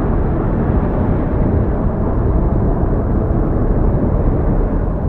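Steady low rumble of an approaching thunderstorm, loud and unbroken.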